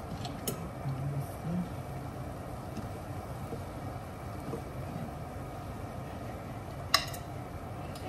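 Picarones deep-frying in a pan of hot oil, a steady sizzle, with a sharp clink of a metal fork against the pan about seven seconds in.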